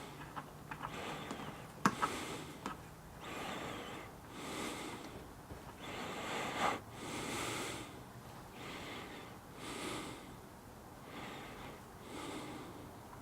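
A person breathing close to the microphone, soft even breaths about every second and a half. A few sharp clicks come in the first seconds, the loudest about two seconds in.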